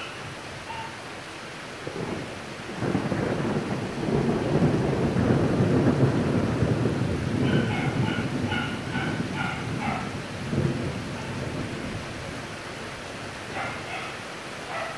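Heavy rain hissing steadily, with a long roll of thunder that builds about three seconds in, is loudest around five to seven seconds and rumbles away by about twelve seconds.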